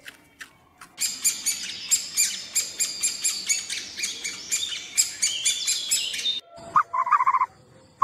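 Small birds chirping busily, a dense mass of short high chirps starting about a second in and lasting about five seconds, then a few short, lower clipped calls near the end.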